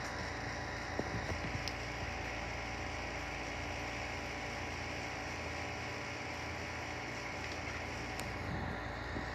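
A steady mechanical hum with a hiss, with a few soft, brief sounds about a second in and near the end.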